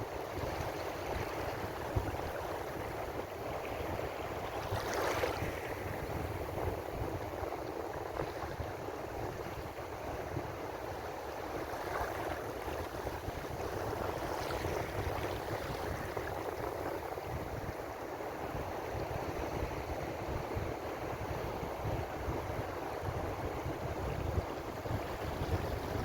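Ocean waves washing on the shore in a steady rushing wash, with louder surges of breaking surf about five seconds in and again about fourteen seconds in.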